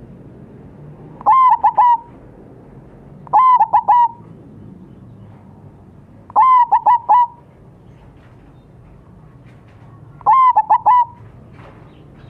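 Zebra dove (perkutut) cooing: four short phrases, each of three or four quick clipped coos, spaced a few seconds apart.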